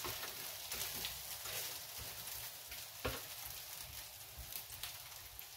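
Breakfast frying in a pan: a soft, steady sizzle with scattered small pops and crackles, and one sharper click about three seconds in.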